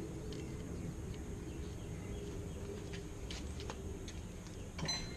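Steady low background rumble with a few faint clicks of small metal parts being handled, and a short ringing metallic clink near the end.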